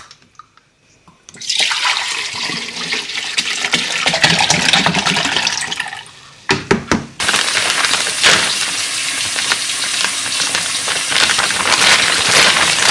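Water running and splashing into a container, in two long stretches with a short break between them, where a few knocks sound.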